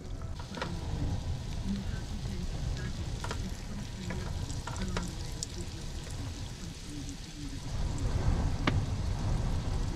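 A potato scone frying in a pan on a gas hob, with a steady sizzle. Metal utensils click sharply against the pan a few times while the scone is turned over and handled.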